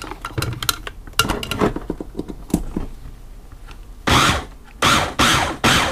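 Plastic clicks and knocks as the hand blender's motor unit and lid are fitted onto the chopper bowl, followed about four seconds in by several short, loud rasping bursts.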